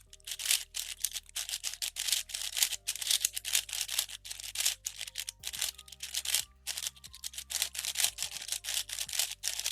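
A MoYu AoChuang V6 5x5 speedcube being turned quickly by hand, its plastic layers clicking and clacking in a fast, irregular stream as fresh lube is worked in.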